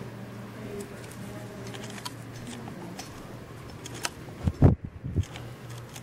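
A steady low hum with faint scattered clicks, then a few dull, loud low thumps about four and a half to five seconds in, the second one loudest, as a handheld camera is moved close to a closet door.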